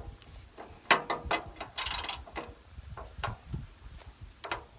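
Hand ratchet wrench clicking in short, irregular runs, with scattered metal clicks, as bolts on a tractor radiator are worked loose.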